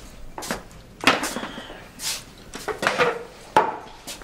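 Footsteps on a hard floor and a wooden chair being moved at a wooden table, a string of sharp knocks and short scrapes; the loudest knocks come about a second in and twice more near the end.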